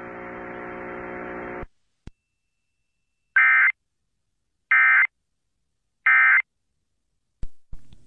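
A steady buzzing hum for about a second and a half, cut off by a click. Then three short, identical bursts of screeching digital data tones about a second and a third apart: the Emergency Alert System's SAME end-of-message (EOM) code, which marks the end of the alert.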